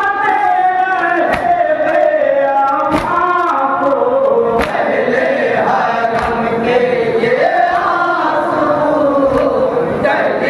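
Men chanting a nauha, a Shia mourning lament, into a microphone, with a crowd of men joining in chorus. Sharp slaps of chest-beating (matam) land about every second and a half in the first half.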